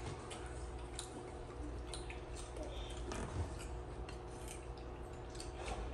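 Eating at the table: scattered small clicks and taps of spoons against bowls and plates, with chewing, over a steady low hum.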